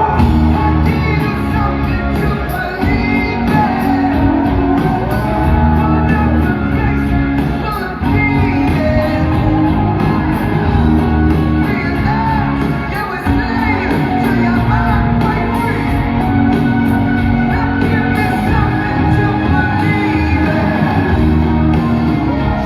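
Rock music with singing, played in a large hall.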